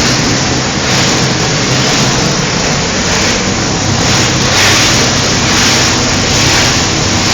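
Medical waste shredder running: a steady motor hum under a continuous loud grinding noise.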